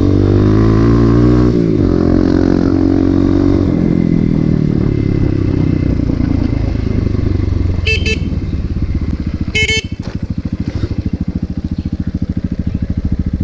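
Motorcycle engine running while riding, its note rising and dipping through the first few seconds. Two short horn beeps come about eight and ten seconds in, after which the engine drops to a lower, evenly pulsing run as the bike slows.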